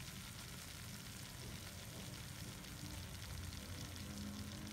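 Pork adobo with bananas sizzling in a nonstick pan on the stove: a steady fine crackle over a low hum.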